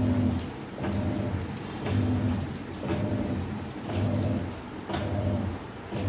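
Whirlpool top-loading washing machine in its wash cycle: the motor turns the pulsator one way and then the other about once a second, each stroke starting with a click and running as a low hum, with water churning in the tub.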